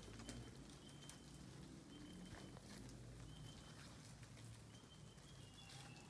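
Near silence in the forest: a few faint, short, high whistled notes from distant birds, with faint footsteps on the trail.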